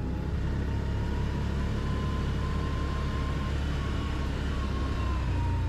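ATV engine running steadily under way, a low drone with a faint whine that rises and falls slightly over it.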